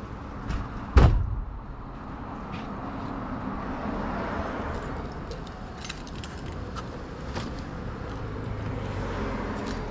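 Street background with a steady hum of traffic, broken by one heavy thump about a second in, then a few light clicks and rattles.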